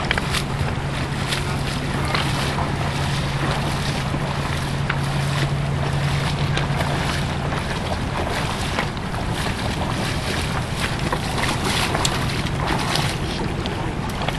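Wind buffeting the microphone over the rush of a shallow river, with scattered sharp splashes and clicks as anglers in waders move through the water. A low steady hum sits underneath and stops a little past halfway.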